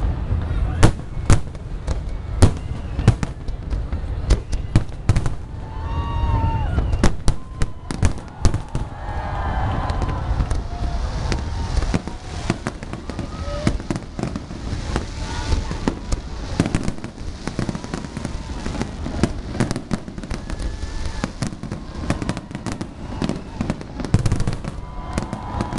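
Aerial fireworks display: a rapid string of sharp bangs from shells bursting overhead, over a continuous low rumble. The bangs come thick and fast for the first several seconds, then further apart.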